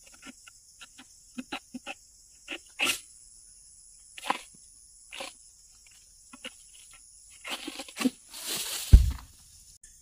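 Oil palm harvesting with an egrek, a long-poled sickle: scattered clicks and scrapes as the blade works among the fronds high in the palm crown. Near the end comes a rustling crash, then a heavy thud as a cut piece of the palm hits the ground.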